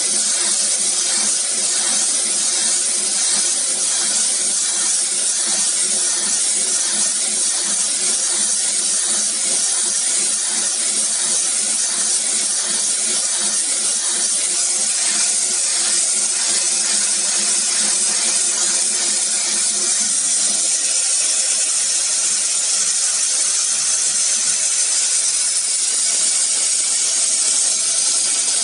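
CO2 laser cutting machine at work on wood: a steady, loud hiss of blowing air from the cutting head and extraction. A fainter low machine hum underneath drops away about two-thirds of the way through.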